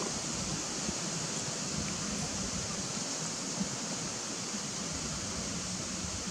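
Steady outdoor background hiss, an even rush that is strongest in the high range, with no monkey calls or other distinct events.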